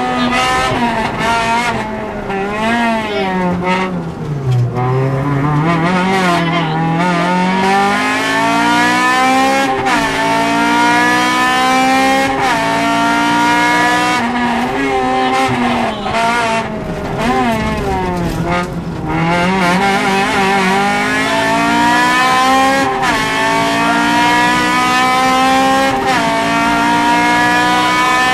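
Honda Civic VTi rally car's four-cylinder engine heard from inside the cabin, driven hard on a rally stage. The pitch falls to its lowest about four to five seconds in as the car slows for a bend, then climbs again and again, dropping back at each upshift.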